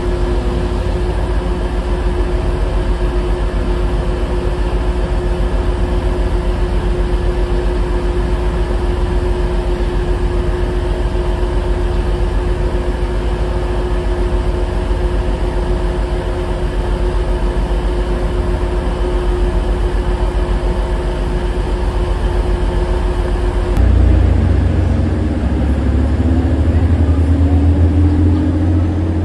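Class 185 diesel multiple unit's engines idling at the platform, a steady drone with a constant hum. About 24 s in it cuts to a train running into the platform: a louder, deeper rumble with a slowly rising whine as it approaches.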